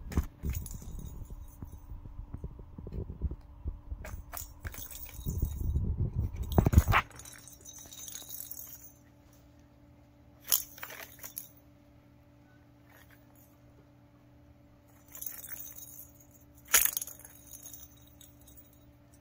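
Toy bell ball jingling inside a cardboard accordion cat scratcher as a cat bats at it, over dense rustling and bumping of the cardboard for the first several seconds. After that it is quieter, with a few short jingles, the last and loudest near the end.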